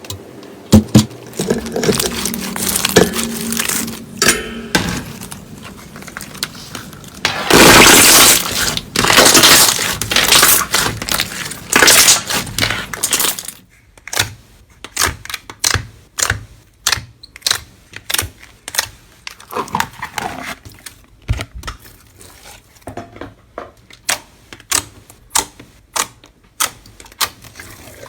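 Slime being squeezed and pressed by hand: crackling and crunching, a dense run of loud crunching partway through, then a string of sharp separate pops, about two a second.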